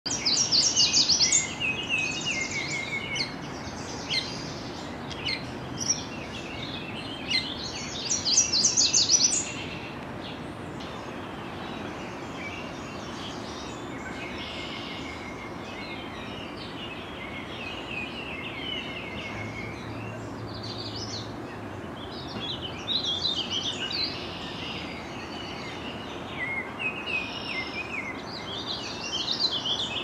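Songbirds singing over a steady outdoor background hiss: loud, fast, repeated high phrases in the first ten seconds, then fainter scattered song, and from about 23 seconds in the rambling warbled phrases of a warbling vireo.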